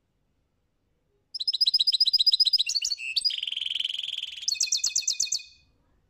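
European goldfinch singing one song phrase of about four seconds, starting about a second in: a fast run of repeated high notes, then a buzzy trill, then another fast run of notes.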